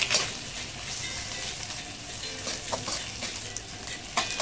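Rice and egg sizzling in a wok while a slotted metal spatula stir-fries them. The spatula clacks and scrapes sharply against the wok a few times: just after the start, about midway and near the end.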